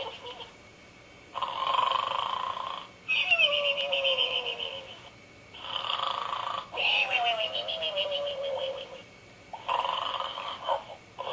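Gund 'Arnold' plush pig toy playing its snoring sound: a hissing in-breath, then a longer fluttering out-breath with a whistle that slides down in pitch. The cycle repeats about every four seconds.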